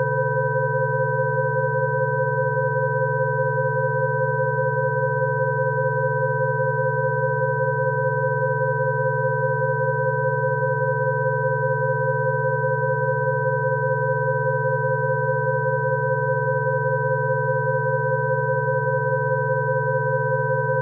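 Several steady electronic sine tones sounding together at different pitches, from a low hum up to a high whistle, held without any change: a Rife frequency tone track for coughing.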